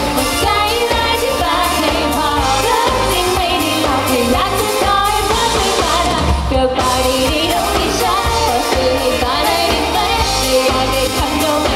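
Live pop band: a woman singing lead into a handheld microphone over drum kit, electric guitar and keyboard, with a second woman's voice singing along.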